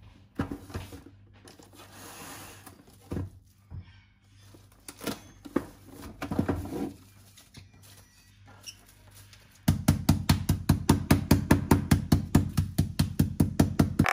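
Cling film rustling and crinkling as it is pulled out and spread over raw chicken breasts, with a few knocks. Then a wooden rolling pin pounds the film-covered chicken on a wooden cutting board in a fast, even run of thuds, about five a second, starting near the end.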